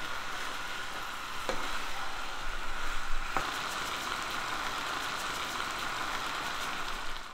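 Mala dry pot stir-frying on high heat in a stainless steel pan: steady sizzling, with a couple of faint clicks from the stirring.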